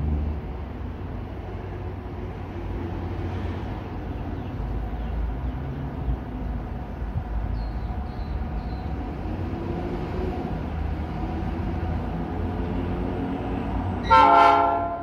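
Locomotive 3922 approaching with a steady low rumble, then one short, loud blast of its horn near the end.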